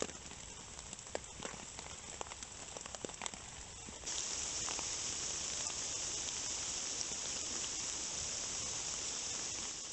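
Rain in woodland: scattered drops heard as sharp ticks over a soft hiss, then from about four seconds a louder, steady hiss of rain.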